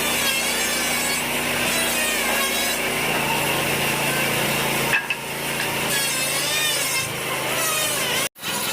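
Power tool cutting wood, running steadily under load, with a brief break about five seconds in and a sudden stop near the end.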